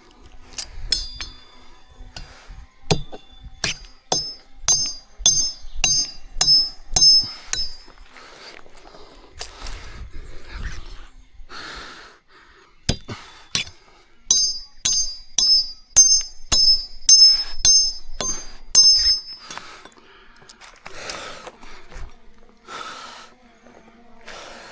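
A run of sharp clinks with a high ring, like metal tapping metal, about two a second. It comes twice: first for about three seconds, then again for about four and a half seconds, with scattered clicks and rustling in between.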